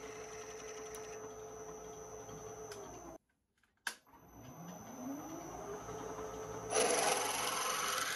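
Machine tool motor running steadily. After a brief break it spins up with a rising whine, and about seven seconds in a louder rasping noise of metal cutting begins.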